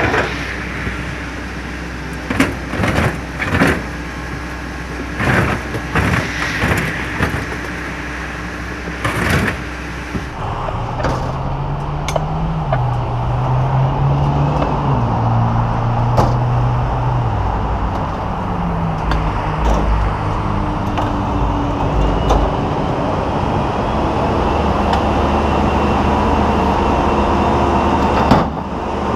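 Crane truck's engine running under load, its pitch stepping up and down several times from about ten seconds in as the hook starts to lift. Before that, a run of sharp knocks and clanks sounds over a steady hum.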